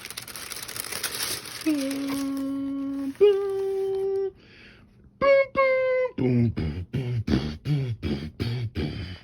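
A man making sound effects with his voice. It starts as a hiss, then he holds two hummed tones, the second a step higher in pitch, and ends with two short higher notes and a quick run of beatbox-like pulses.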